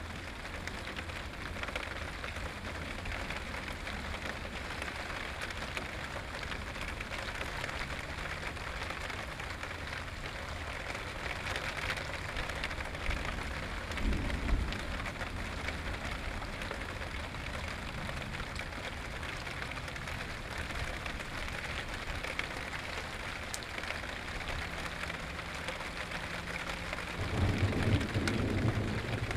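Steady rain falling during a thunderstorm, with a brief low rumble about halfway and a louder low rumble of thunder near the end.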